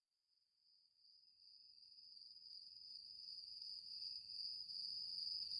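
A steady, unbroken high-pitched tone that fades in from silence over the first few seconds, with a faint low hum beneath it.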